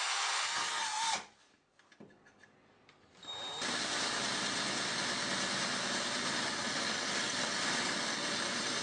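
Cordless drill boring through the sheet-steel case of a computer power supply, a harsh grinding noise. It runs for about a second, stops for about two seconds, then starts again and keeps drilling steadily.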